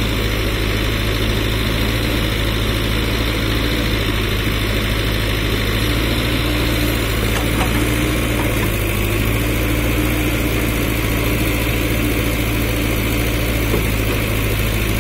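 Diesel engine of a JCB 3DX backhoe loader running at a steady speed, with a loud, even, low hum.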